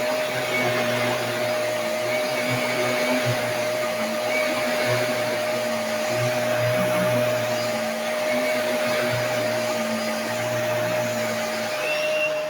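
Vacuum cleaner running steadily with a constant motor whine; its lower hum wavers up and down.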